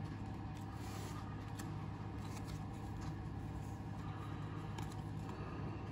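2023 Bowman Platinum baseball cards being flipped through by hand, the cards sliding against one another with faint rustles and light ticks, over a steady low hum.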